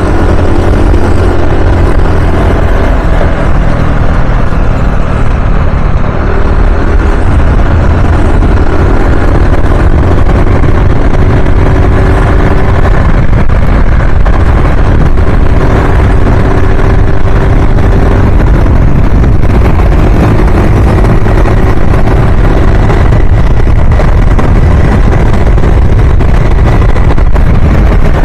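Riding a scooter: a loud, steady rush of wind on the microphone with engine and road noise beneath it, and faint engine tones drifting in and out.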